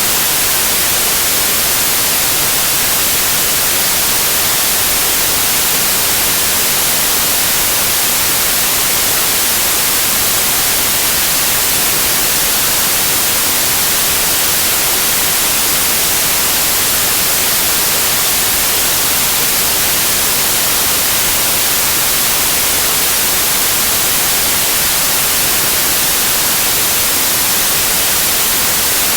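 Steady white noise like TV static: an even hiss, brightest in the highs, that does not change.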